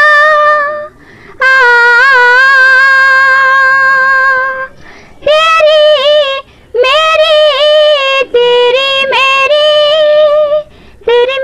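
A woman singing solo without accompaniment, in long held notes that waver slightly, with short pauses for breath between phrases.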